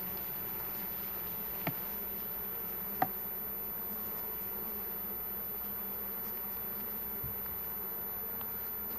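Honeybees buzzing around an opened hive, a steady hum; the colony is calm despite being brushed off the combs. Two short clicks at about two seconds in and again a second later.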